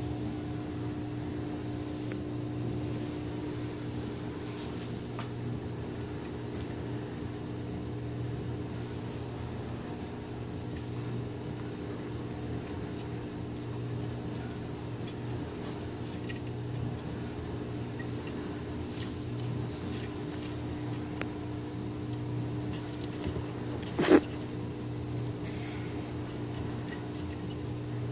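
Steady low mechanical hum of a household appliance, with faint scattered scratches and taps as a kitten grapples with the wooden legs of a TV tray on carpet. One sharp knock late on is the loudest sound.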